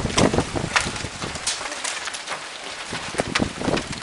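Rain pattering on a surface close to the microphone: irregular sharp drop hits over a steady hiss.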